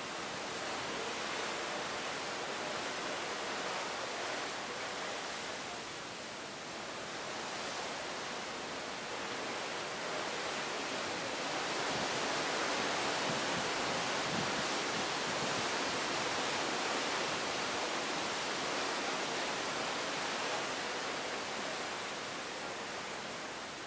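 Sea water rushing steadily along the hull of a cruise ship under way. It swells louder about halfway through as white water foams along the side, then eases near the end.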